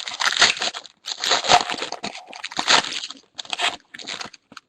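Crinkling and tearing of a foil trading-card pack wrapper being opened and handled, in several crackly bursts.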